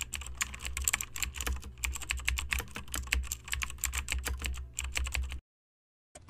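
Rapid keyboard typing, a dense patter of key clicks over a low hum, used as a typing sound effect. It cuts off abruptly a little over five seconds in.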